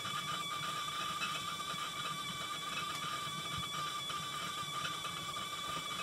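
Log-burning stove with faint crackling from the fire, under a steady high whistle from the stovetop whistling kettle on top as it comes to the boil.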